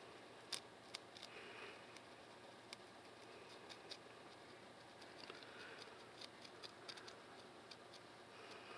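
Plastic comb scratching a dry, flaky scalp, loosening dandruff: faint, irregular scratchy clicks.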